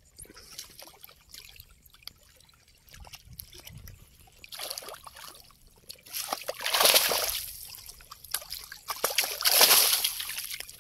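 Water sloshing and splashing as a mesh keep net full of fish is hauled by its rope through shallow water and out onto the bank, with two loud bursts of splashing in the second half.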